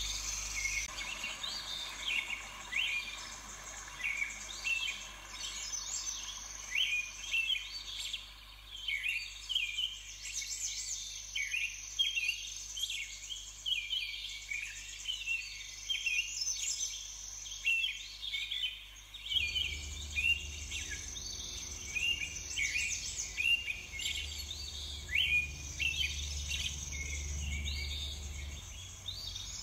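A chorus of songbirds singing, with many short overlapping chirps and trills throughout, over a steady high hiss. A low hum joins about two-thirds of the way through.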